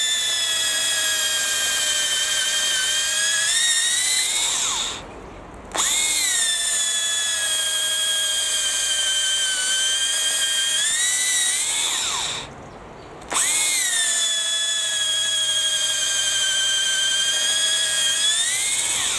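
Makita cordless drill driving a 10 mm auger bit, its motor running in three long runs with two short stops. In each run the whine slowly sinks as the bit loads up, then rises just before the motor cuts off.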